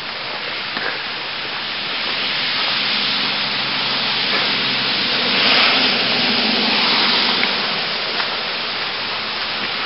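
Heavy hurricane rain pouring down, a steady hiss that swells a little louder around the middle.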